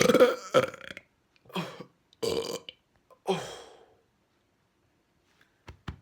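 A run of loud human burps: a long one at the start, then three shorter ones. A few short sharp knocks come near the end.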